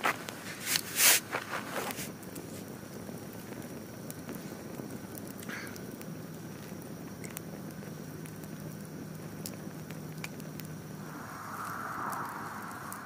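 Wood campfire burning with steady crackling and scattered pops, and a few louder sharp snaps in the first couple of seconds. A faint low hum comes in for a few seconds in the middle, and a soft hiss near the end.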